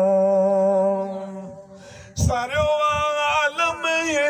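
A man singing a Sindhi devotional song through a microphone. He holds a long note that fades out about a second and a half in, pauses briefly, then begins a new phrase with a wavering melody.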